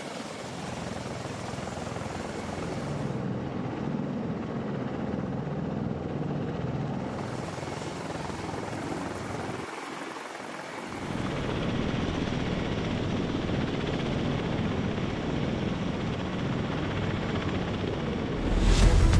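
Military rotorcraft running on the ground with engines kept turning for hot pit refueling: a steady turbine and rotor drone, first from a V-22 Osprey tiltrotor, then, after a brief drop about ten seconds in, a louder drone from a CH-53E Super Stallion helicopter. Music comes in just before the end.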